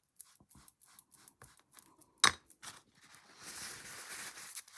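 Small clicks and taps of handling a miniature mirror frame and tools, with one sharp click about two seconds in, then steady rubbing starting about three seconds in.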